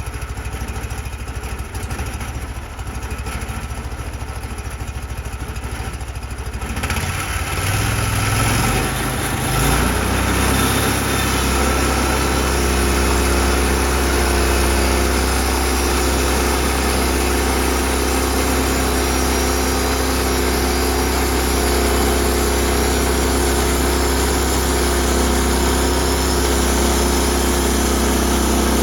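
Gasoline engine of a Norwood portable sawmill running, first at a low idle, then throttled up about seven seconds in, rising in pitch over a few seconds and settling into a steady, louder high-speed run.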